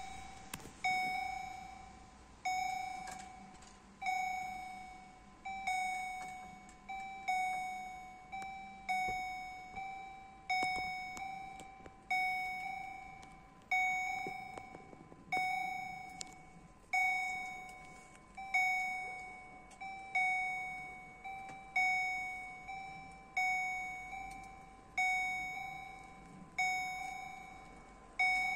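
Electronic bell of an automatic railway level crossing ringing. It strikes a single ding about every second and a half, and each stroke rings out and fades before the next. It is the warning that the crossing is active and the barriers are down for an approaching train.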